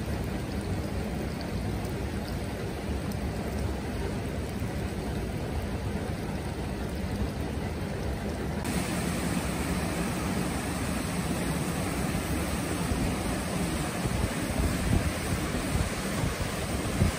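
Steady rushing outdoor noise, deep and rumbling, of the kind made by wind on the microphone or flowing water. A little past halfway it abruptly turns brighter and hissier, and a few louder gusts come near the end.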